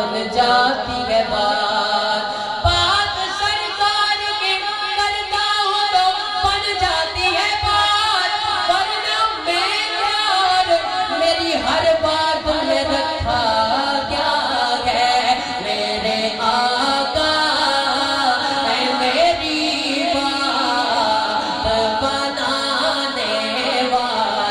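A solo male voice singing devotional Urdu verse (a naat) into a microphone, in long melodic lines that bend and glide.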